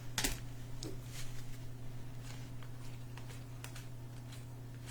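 Trading cards handled and slid through the hands, making faint scattered clicks and rustles over a steady low hum.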